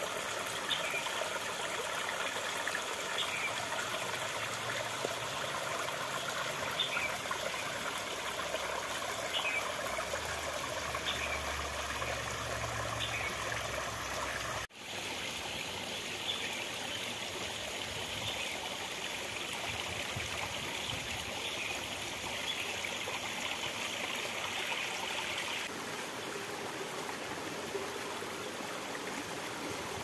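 Shallow rocky stream flowing and trickling between boulders: a steady rush of water, broken by a brief dropout about halfway.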